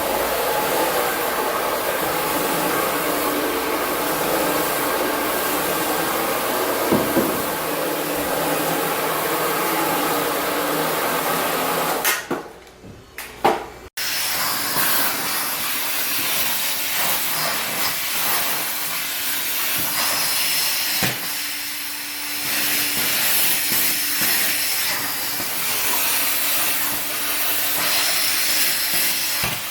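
Hot-water pressure extraction machine for tile and grout cleaning running steadily, its vacuum and spray hissing as the floor tool works. About halfway through the sound drops out briefly, then comes back with a brighter hiss.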